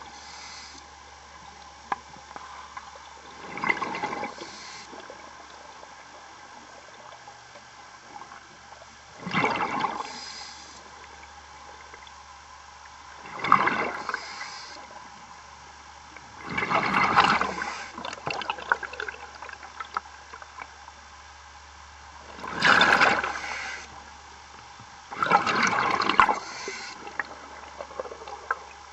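Scuba diver's exhaled air bubbling out of the regulator in six gurgling rushes, one every four to six seconds, heard underwater over a faint steady hum.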